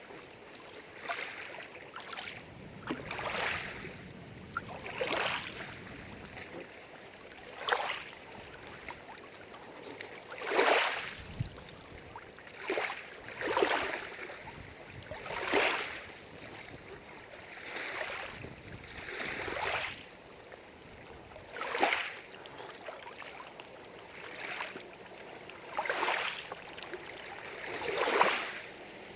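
Small lake waves lapping and splashing at the shore, one wash every second or two.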